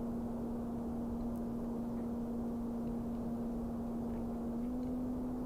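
Electric motor and propeller of a Carbon Cub S2 RC plane humming steadily in flight, with a slight rise in pitch about four and a half seconds in. Wind rumbles over the onboard camera's microphone.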